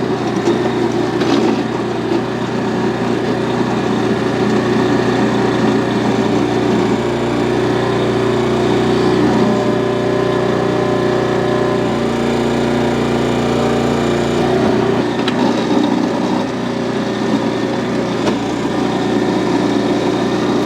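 Small gasoline engine of a Harbor Freight Central Machinery towable backhoe running steadily, driving its hydraulics while the bucket digs. Its note shifts slightly for a few seconds partway through, then settles again.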